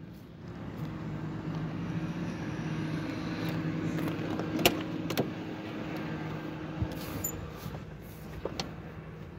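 Steady low hum of a car, with two sharp clicks about halfway through as a car door's latch and handle are worked to open it, and a lighter click a little later.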